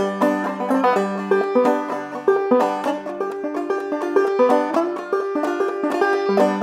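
Solo open-back banjo played clawhammer style: a quick, continuous run of plucked notes over a ringing low drone note.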